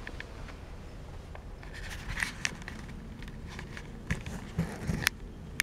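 Light handling noise: scattered soft clicks and taps with a brief rustle about two seconds in and a few sharper knocks near the end, over a steady low hum.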